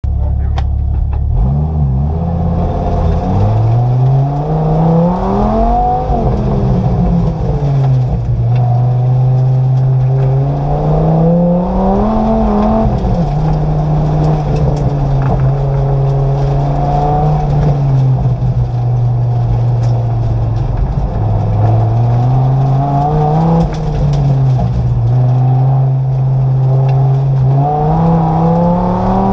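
Dodge Viper's V10 engine heard from inside the cabin during an autocross run, pulling hard from a launch about two seconds in. Its pitch then climbs and drops over and over as the driver accelerates and lifts through the cones.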